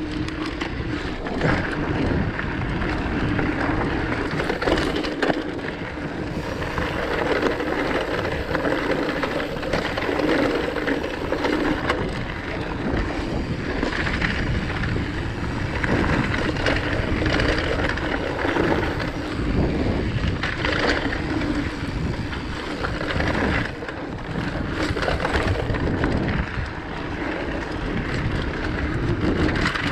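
Decathlon Rockrider mountain bike ridden along rocky dirt singletrack: tyres rolling over dirt and stones, with frequent rattles and knocks over bumps and wind noise on the microphone.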